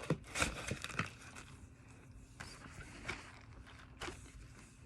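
Packaging and small containers being handled during unboxing: faint rustling and scattered light clicks, busiest in the first second and sparse after that.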